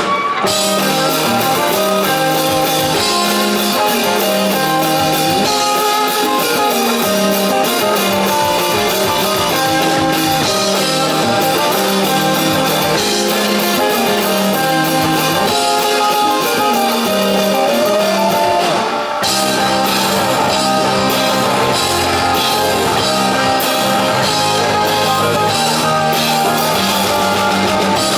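Live rock band playing with guitars and drum kit, loud and steady. About 19 seconds in the music drops out for a moment, then the band comes back in fuller, with a heavier bass line.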